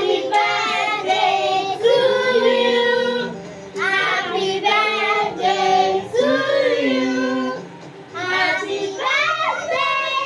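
A song sung in high, child-like voices, held notes in phrases, with short breaks about three and a half and eight seconds in.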